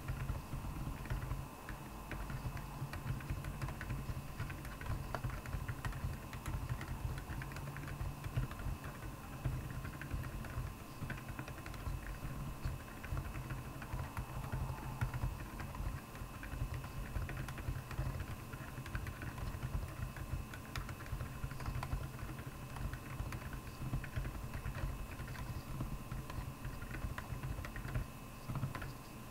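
Continuous typing on a Royal Kludge R75 mechanical keyboard with Akko Penguin tactile silent switches: a steady, dense run of keystrokes whose sound sits mostly low in pitch.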